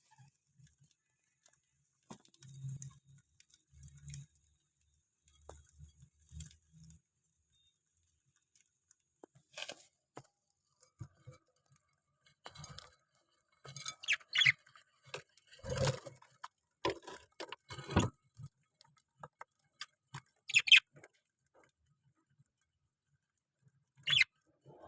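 Parrots making sparse, irregular short sounds: scattered clicks and taps, with a few brief sharp chirps clustered around the middle and one near the end. Soft low thuds come in the first few seconds.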